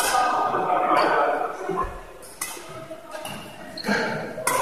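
Voices in a large, echoing hall, then three sharp cracks of badminton rackets hitting a shuttlecock in the second half.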